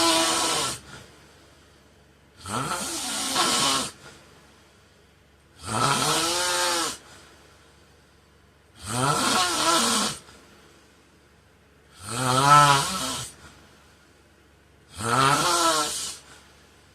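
A man snoring steadily in his sleep, one snore about every three seconds, each lasting just over a second. Each snore has a pitched tone that rises and then falls, under a breathy hiss.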